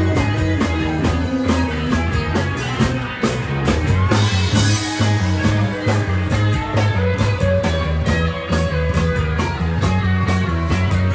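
Live rock band playing an instrumental passage: drum kit keeping a steady beat under bass and electric guitar, with a cymbal crash about four seconds in.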